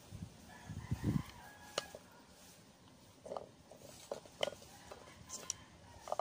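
Peanuts in their shells being handled and cracked open: a scatter of sharp cracks and clicks, with a cluster of dull knocks about a second in and a few short mid-pitched sounds later on.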